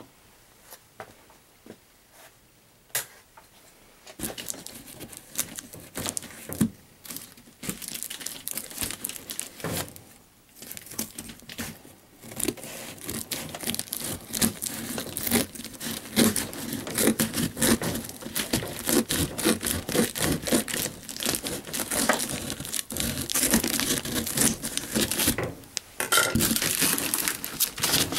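Plastic wrap and packing tape on a cardboard box being cut and torn open with red-handled cutters, crinkling and tearing. A few sparse clicks come first, then steady tearing and crackling from about four seconds in, growing louder toward the end.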